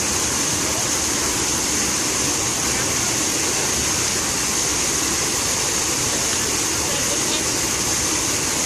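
Fountain water splashing, a steady, unbroken rush of falling water.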